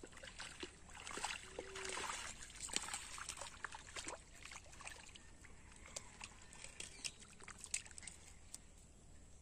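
A hooked fish splashing at the water's surface as it is drawn in to the bank, for a few seconds, followed by scattered sharp clicks and taps.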